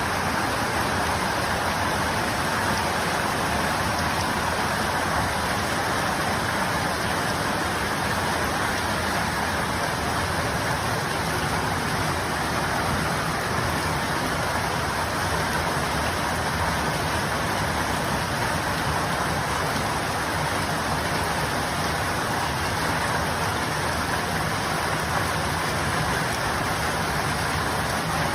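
Heavy rain pouring down in a storm, a steady, unbroken rush.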